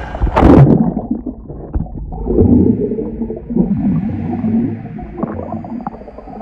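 A body plunging into lake water with one loud splash about half a second in, followed by muffled underwater bubbling and churning as heard from below the surface.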